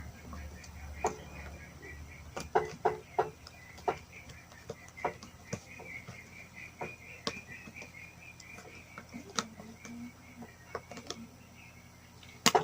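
Homemade white slime being mixed and kneaded by hand: sticky clicks and pops at irregular intervals, with a quick cluster of them about two to three seconds in.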